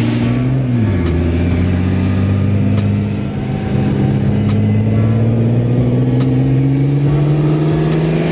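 Loud turbocharged car engine running, its note dropping about a second in and then climbing slowly and steadily, with the turbos spooling.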